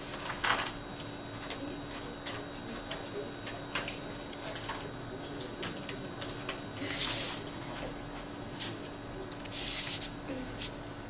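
Felt-tip marker being dragged across paper in short strokes, giving a few brief hissing scratches, the loudest near the start, about seven seconds in and near the end, with small taps and paper shifting between them.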